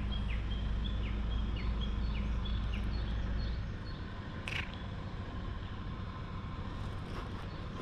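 Outdoor ambience: a bird repeats a short falling chirp about twice a second, over a deep rumble that cuts off about halfway through. A brief rustle comes a little past the middle.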